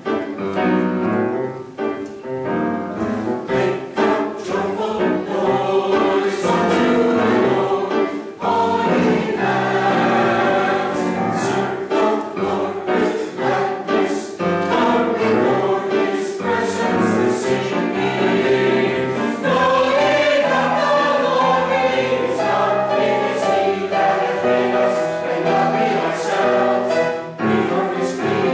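Mixed church choir of men's and women's voices singing together in parts.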